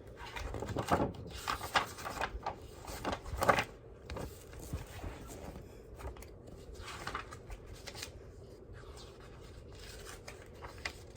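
Irregular rustling and scraping of a picture book being handled, its pages turned, heaviest in the first few seconds and returning in short bursts later.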